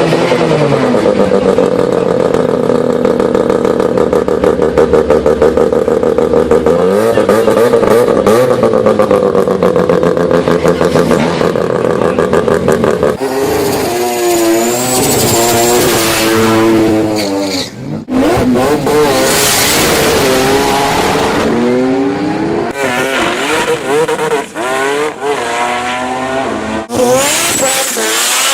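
Rotary (Wankel) engine cars at high revs, one clip after another. A near-steady high-rpm drone for the first several seconds, then repeated rises and falls in pitch as the engines rev and shift, with abrupt changes of clip about 13, 18 and 27 seconds in.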